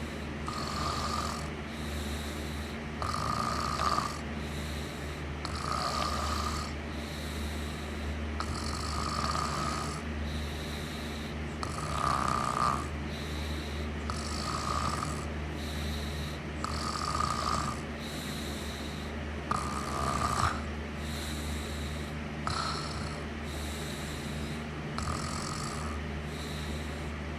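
A person snoring in a slow, even rhythm, about one snore every two and a half seconds, over a steady low hum.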